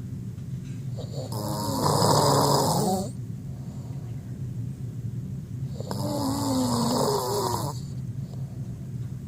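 A man snoring in his sleep: two long snores about four and a half seconds apart, each lasting under two seconds, the first the louder, over a steady low hum.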